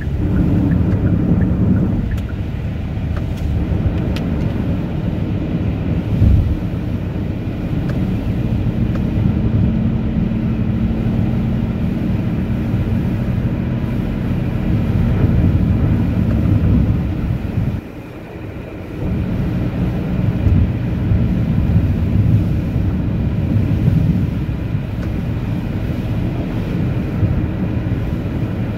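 A car driving on a snowy road: a steady low rumble of road and engine noise with a faint steady hum. The rumble drops away briefly about two-thirds of the way through.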